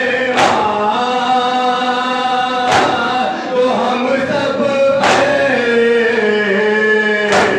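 Male voices chanting a nauha (Shia lament) into a microphone in long held lines, cut four times, about every two and a half seconds, by a sharp slap of chest-beating (matam).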